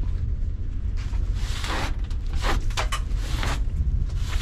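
Rag wiping and scrubbing grime off the sheet-metal surface of a fan coil unit: several rough swishing strokes, about five between a second in and near the end, over a steady low rumble.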